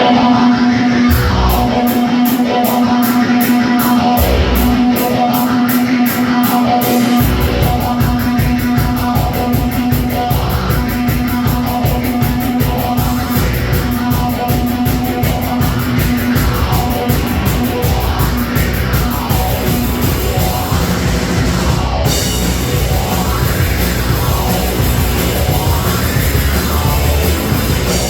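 Live heavy rock band playing loud, distorted music. It opens with a fast, even ticking over a held guitar note, and the full band with drums and bass comes in about seven seconds in.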